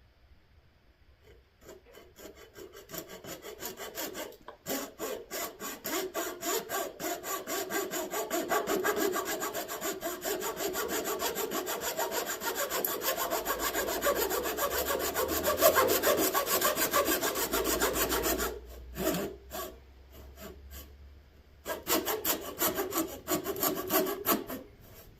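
Hacksaw cutting the end off a motorcycle throttle tube, with quick back-and-forth strokes. The sawing pauses briefly about three quarters through, then resumes for a few more strokes.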